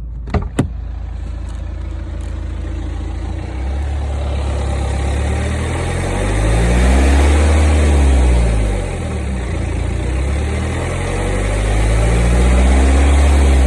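BMW E90 320d's four-cylinder diesel engine running warm, revved up and back down twice, carrying the strange noise that shows up once the engine is warmed up. Two sharp clicks about half a second in.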